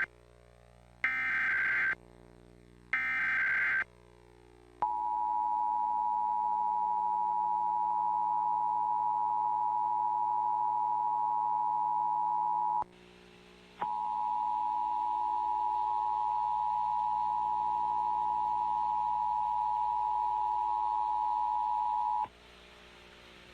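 Emergency Alert System tones: three short, warbling SAME header data bursts, each about a second long, then the steady two-tone attention signal. The attention signal drops out for about a second near the middle, resumes, and stops a little before the end. A faint hum runs underneath.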